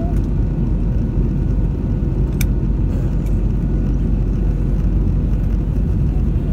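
Steady low cabin roar of an Airbus A320-216 in descent, its CFM56 engines and the airflow heard from a window seat over the wing. A single sharp click about two and a half seconds in.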